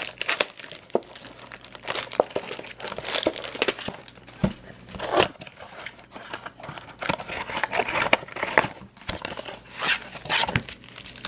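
Crinkling and tearing of packaging as a trading-card blaster box is opened and its foil-wrapped packs are pulled out and handled: irregular rustles with a few louder rips.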